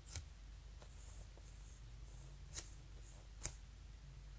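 Near silence with a faint low hum, broken by four faint clicks as hands squeeze a soft foam squishy toy.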